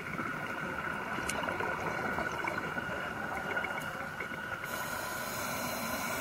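Scuba diver's regulator breathing heard underwater: a low bubbling rush, then a sharp hiss of air through the regulator for about a second and a half near the end, over a steady faint whine.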